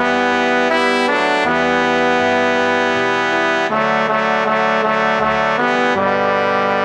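Synthesized part-practice rendering of a four-part men's choral arrangement (T1, T2, B1, B2 lines), with sustained held chords whose notes change every second or so.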